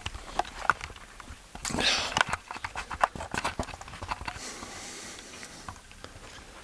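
Footsteps and handling knocks from someone walking with a handheld camera. There is a short breathy rush about two seconds in.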